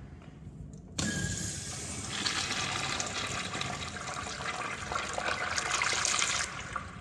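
Urinal flushing: a sudden rush of water starts about a second in, runs strongly for about five seconds, then stops shortly before the end.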